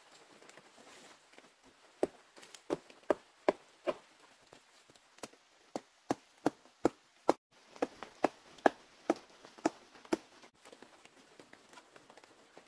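A machete chopping into the soft, fibrous trunk of a wild banana plant. It lands a run of sharp strikes, roughly two to three a second: about five, a short pause, then about a dozen more.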